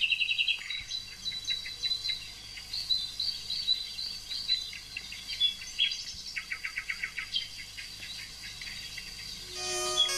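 Several small birds chirping and singing, with repeated fast trills, in Mediterranean scrub. Music with held notes comes in near the end.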